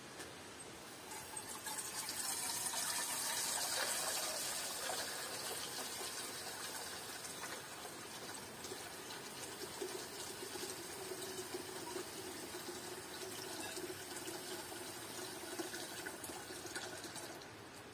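Water from an outdoor tap running into a metal pot as it fills. The flow starts about a second in and is shut off near the end.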